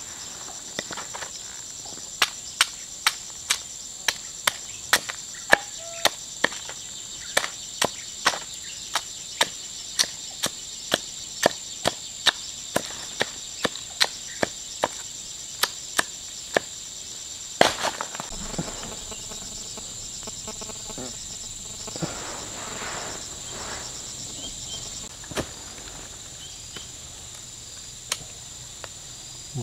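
Forest insects droning steadily and shrilly, with a run of sharp, evenly spaced knocks about two a second through the first half, ending in one louder knock about halfway through.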